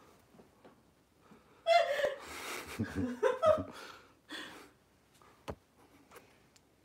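A man laughing: a loud burst of about two seconds, then a shorter breathy laugh, followed by a single sharp click.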